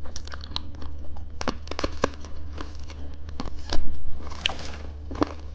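Plastic candy wrappers crinkling and rustling as they are handled, in many short crackles with a longer rustle about four seconds in.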